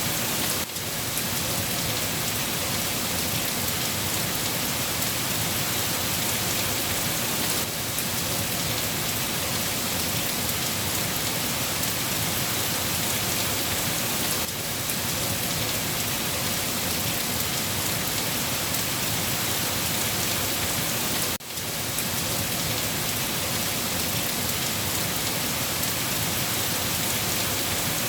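Steady heavy rain, a dense even hiss of drops falling on a surface, with short dips in level about every seven seconds.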